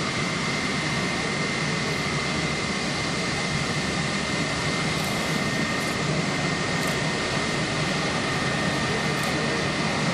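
Twin-engine jet airliner's engines running steadily, a broad steady roar with a high whine held on one pitch.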